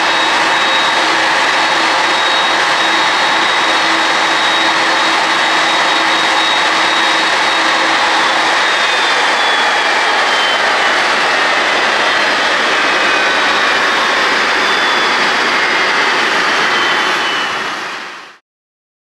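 Boeing 767-300's jet engines running at idle: a loud, steady jet whine with high whining tones. In the second half the tones slowly fall in pitch as the engines begin to spool down at the stand. The sound fades out near the end.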